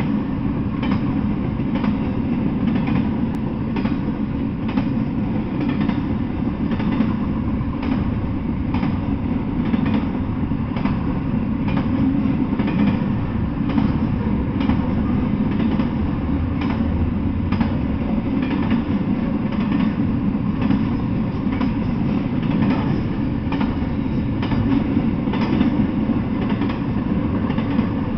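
Double-stack intermodal freight train passing, with a steady rumble of steel wheels on rail and frequent clicks as the wheels cross rail joints.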